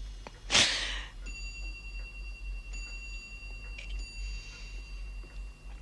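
A woman's sharp sobbing gasp, then soft chime-like music: a few high bell tones held steady together, over a low background hum.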